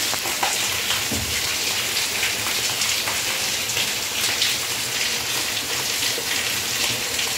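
Steady rain falling on leaves, palm fronds and a brick wall: an even hiss with many single drops ticking through it.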